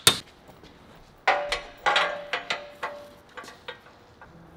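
Hammer blows driving a 1-inch solid steel bar plug into a chopper frame tube joint. One strike at the start, then a harder blow with a short metallic ring, followed by a run of about seven lighter strikes.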